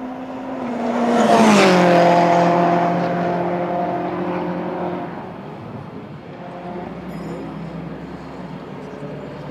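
Praga R1 racing car passing at speed. The engine note swells to its loudest about a second and a half in, drops sharply in pitch as the car goes by, then fades away.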